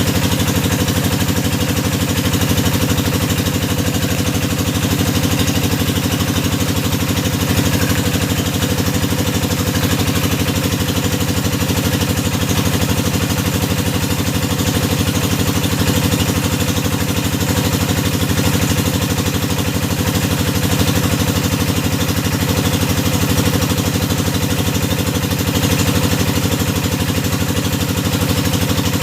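Engine of a hydraulic deep-well drilling rig running steadily at a constant speed.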